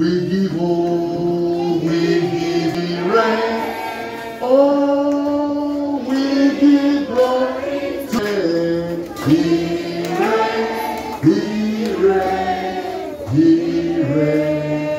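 A group of children and adults singing a worship song together, the voices holding long notes and sliding from one to the next.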